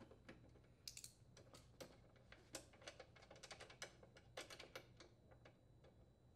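Faint, irregular light metallic clicks as a 10 mm socket is worked on a bolt securing a Honda lawn mower's shroud, unthreading it. The clicks come in a quick cluster about halfway through.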